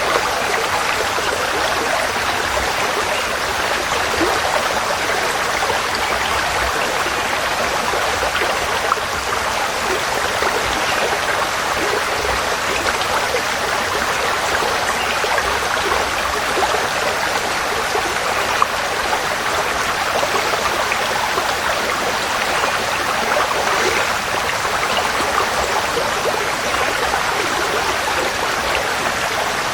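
Forest stream flowing over stones, a steady babble and splash of running water without pause.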